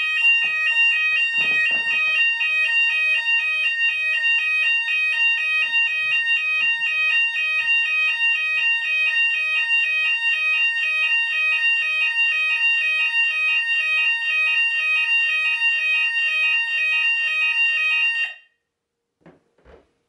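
Fire alarm sounders of a Hochiki ESP addressable system in full alarm after a smoke detector was set off with aerosol test smoke: a steady high tone together with a rapidly alternating two-note tone. It cuts off suddenly about 18 seconds in.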